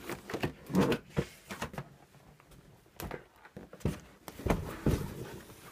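Irregular soft knocks and rustles of a handheld phone being carried and moved about while someone walks across a carpeted room: handling noise and footsteps.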